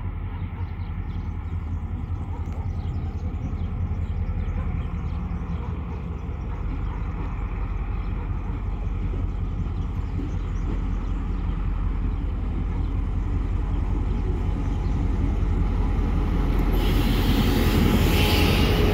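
EMD GL18B diesel locomotive hauling a passenger train, its engine drone growing steadily louder as it approaches and draws alongside. Near the end a loud hiss starts suddenly as the locomotive passes.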